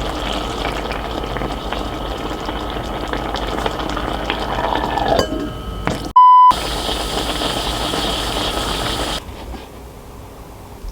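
A pot of liquid boiling with a steady bubbling hiss. About six seconds in comes one short, high electronic beep, and a few seconds later the bubbling sound drops away.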